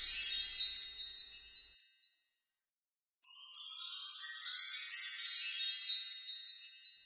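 Magic-wand sparkle sound effect: a cluster of high tinkling chime notes that fades away, a moment of silence, then a second sparkling chime run that sweeps upward about three seconds in and fades out.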